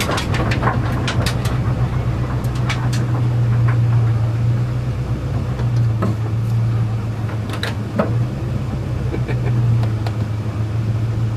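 Honda Integra Type R's engine idling steadily with the car standing still, its note unchanging, with scattered light clicks over it.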